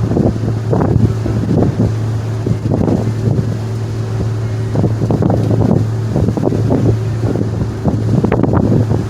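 Staten Island Ferry's engines drone steadily and low, while wind buffets the microphone in irregular gusts.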